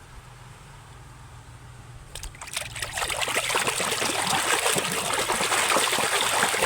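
Water splashing and trickling as a muddy toy is washed by hand in clean water, starting about two and a half seconds in and continuing steadily.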